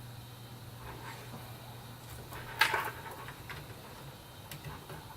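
Cables being handled and routed inside a PC case: light rustling and small clicks, with one sharp clack about two and a half seconds in, over a steady low hum.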